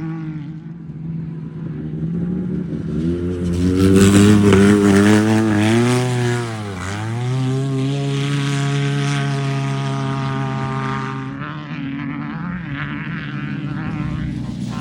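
An off-road race vehicle's engine approaching and passing under power. It is loudest about four to six seconds in, its note dips sharply and climbs back about seven seconds in, then runs steadily before fading away.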